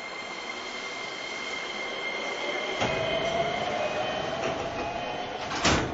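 Interior sound of an E233-5000 series electric commuter train. From about three seconds in, the running noise grows louder and a whine rises slowly in pitch as the train accelerates. One loud clunk comes just before the end.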